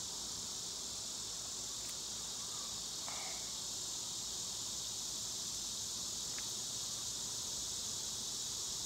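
Steady, high-pitched chorus of summer insects, unbroken throughout.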